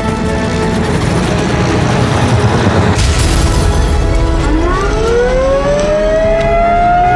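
A dramatic sound-effect track over music: a loud rumbling crash about three seconds in, then a siren-like wail rising in pitch and levelling off.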